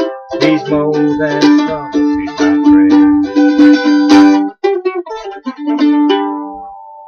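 Mandolin picked in the closing instrumental phrase of a song: a quick run of notes and chords, a short break about four and a half seconds in, then a final chord left ringing and fading out.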